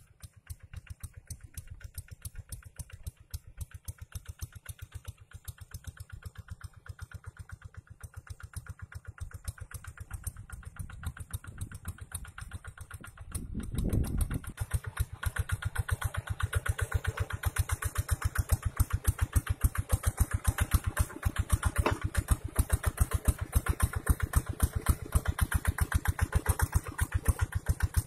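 Two-wheel walking tractor's single-cylinder diesel engine chugging steadily under load as it pulls a plow through dry soil. It is faint at first and grows much louder from about halfway as the machine comes close.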